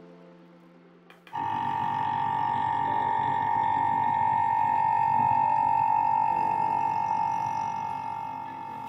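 A UV curing station for resin 3D prints running, its cure cycle just started: a steady high whine over a soft hiss, starting abruptly about a second and a half in.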